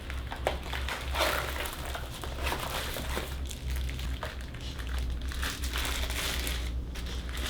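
Packaging being handled and unwrapped, a continuous crinkling rustle with many small clicks, over a steady low hum.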